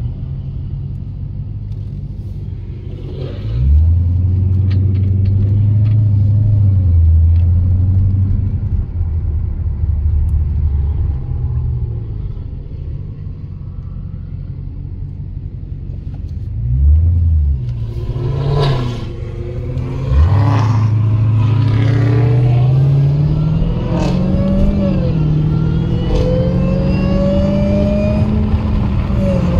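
Dodge Challenger SRT's V8 heard from inside the cabin. It swells loud twice while the car rolls slowly, then goes into a hard full-throttle pull about two-thirds of the way in. The engine note climbs, drops at an upshift, and climbs again.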